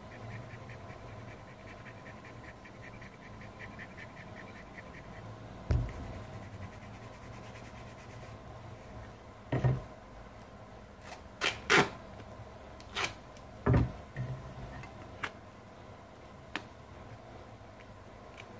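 Silver duct tape being pulled off the roll and torn, heard as a series of short loud rips and knocks. Before that, a run of fast light clicks for about the first five seconds.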